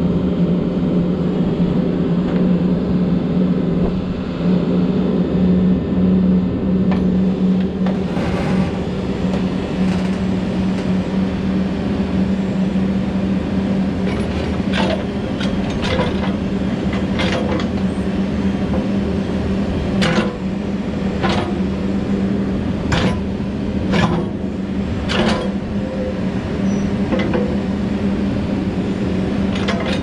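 Case 580N backhoe loader's diesel engine running steadily while its hydraulics lower the stabilizers and work the backhoe boom. A brief hiss comes about eight seconds in, and a series of about ten sharp metal clunks comes in the second half as the boom and bucket move.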